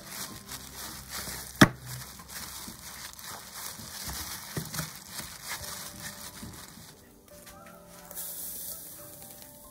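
Plastic food-prep gloves crinkling and squelching as hands knead seasoning into a slab of raw beef ribs on a stainless steel tray, with one sharp click about a second and a half in. It goes quieter after about seven seconds, leaving a few faint steady tones.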